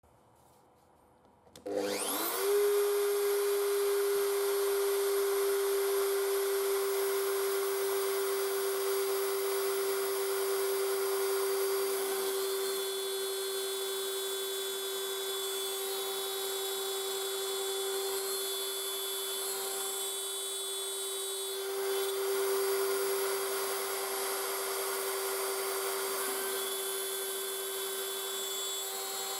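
The router spindle of a homemade CNC router spins up with a rising whine just under two seconds in, then runs at a steady high whine. Its end mill plunges into plywood and cuts letters, with higher tones coming and going from about twelve seconds as the machine moves.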